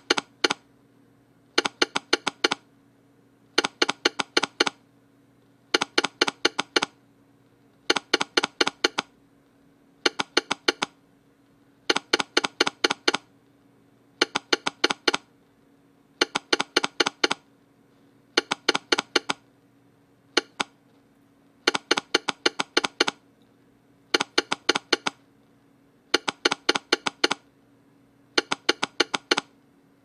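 Telegraph sounder clicking out American Morse, one character at a time: a short cluster of sharp clicks about every two seconds. It sends the letter Z, then the numerals, then punctuation marks.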